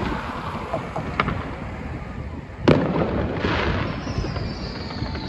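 Distant aerial fireworks display: one sharp bang about halfway through, then a brief crackle, and a high thin tone that slowly falls in pitch, over a steady low rumble of traffic and wind.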